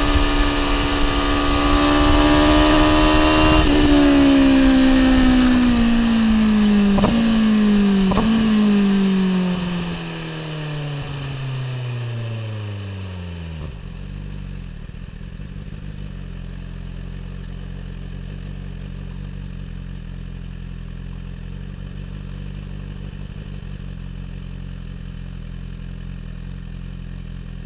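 BMW S1000 R's inline-four engine with an Akrapovic exhaust running at steady revs over wind noise. The throttle then closes and the note falls smoothly over about ten seconds as the bike slows, with two sharp clicks along the way. It then settles into a steady idle.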